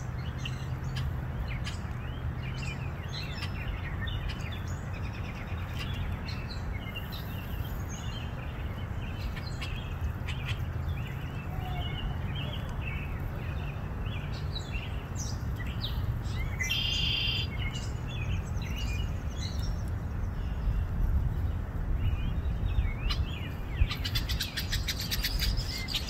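Birds chirping and calling, a red-winged blackbird among them, with a buzzy trill about two-thirds of the way in, over a steady low rumble of wind on the microphone.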